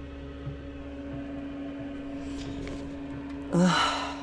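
Diesel parking heater's blower running with a steady hum, blowing lukewarm air because the heater is not producing heat properly. Near the end there is a short, louder vocal sound with a wavering pitch.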